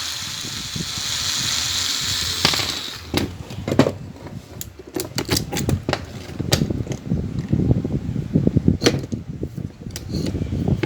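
A steady hiss for about the first two and a half seconds, then a run of small clicks, knocks and rattles from the parts of an electric fan's motor being handled during disassembly.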